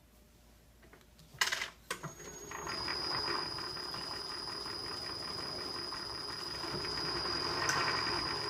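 A couple of clunks, then a milling machine's spindle starts and runs steadily with a high whine, getting a little louder near the end.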